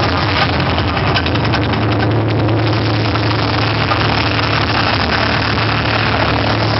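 Mirage volcano show's eruption effect: a loud, steady low rumble with a dense hiss over it, slightly crackly in the first seconds.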